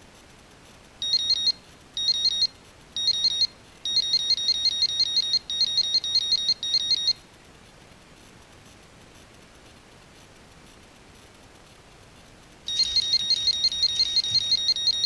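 Electronic carp bite alarm beeping rapidly in a high tone: a few short bursts, then a longer run of beeps, a pause, and steady beeping again near the end. The alarm sounds when line is drawn over it, the sign of a fish taking the bait.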